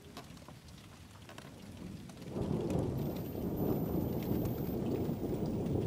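Rain falling, with scattered drops ticking close by. About two seconds in, a rumble of thunder starts and carries on, much louder than the rain.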